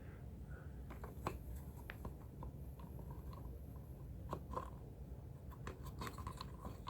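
Faint, scattered clicks and light scraping from small parts being handled during a smoke alarm installation, over a low steady hum.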